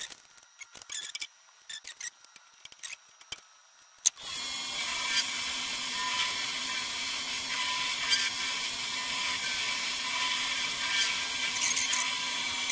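Scattered light clicks and taps, then about four seconds in an old milling machine starts with a click and runs steadily, a hum under a loud high hiss, as it mills slots in a steel motor plate.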